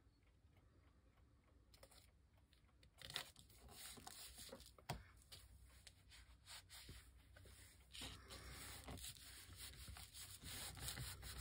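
Faint rustling and rubbing of paper being handled, with a few light taps. It starts almost silent and grows busier from about three seconds in.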